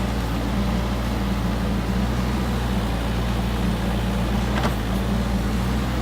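Engine running steadily with a low, even drone, and a faint click about four and a half seconds in.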